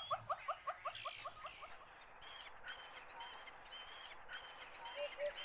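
Bush ambience: a rapid run of short, evenly repeated call notes, about five a second, fading out within the first two seconds, then scattered faint high chirps.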